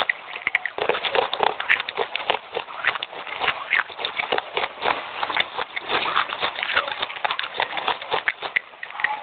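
Fast, continuous crunching of wet red clay chips being chewed: a dense run of sharp crackly bites with no pause.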